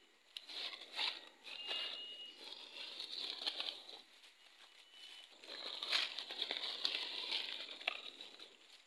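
Footsteps crunching and crackling through dry fallen leaves, in two stretches of a few seconds each with a short lull between, with sharper snaps now and then.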